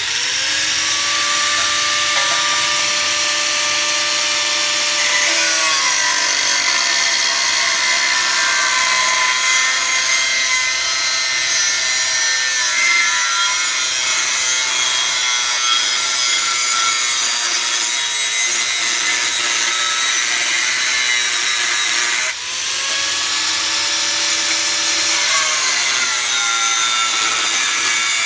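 Angle grinder with a cut-off disc cutting a metal tube, a loud steady whine with grinding. Its pitch drops as the disc bites into the tube about five seconds in; around twenty-two seconds it briefly eases off, the pitch rises, then drops again as cutting resumes.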